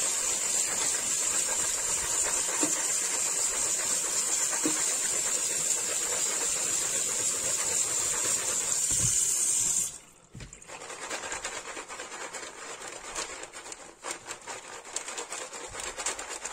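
Kitchen tap water running onto soaked white beans in a plastic colander in the sink, a steady rushing hiss. The tap is shut off about ten seconds in, leaving quieter draining and dripping with small clicks of beans shifting.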